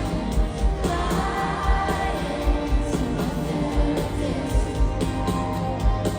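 Live pop band music over a stadium sound system, with a steady kick-drum beat, sustained instrumental chords and some singing.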